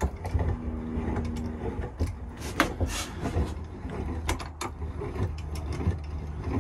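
Cast-iron bench vice being worked by hand, giving irregular metallic clicks and knocks as its handle and jaws are moved.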